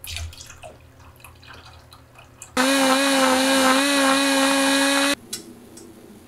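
Milk poured into a saucepan of corn kernels, trickling and splashing faintly. About two and a half seconds in, an immersion blender starts, blending the corn and milk with a loud, steady whine that wavers slightly in pitch. It cuts off suddenly after about two and a half seconds.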